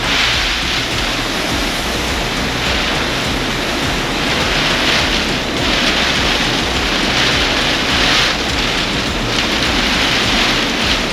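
Typhoon wind and heavy rain: a loud, steady rushing that swells in gusts every few seconds.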